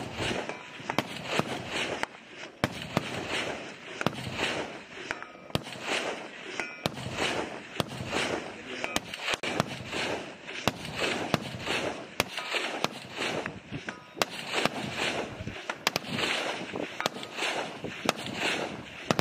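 Scattered sharp gunshots from rifles firing on a live-fire range, over the rhythmic swish of footsteps wading through tall grass, about two steps a second.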